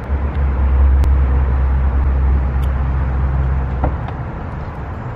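Wind buffeting the camera microphone: a steady, loud low rumble with a hiss over it.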